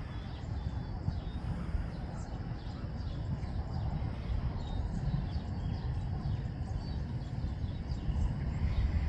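Scattered faint bird chirps over a steady low rumble.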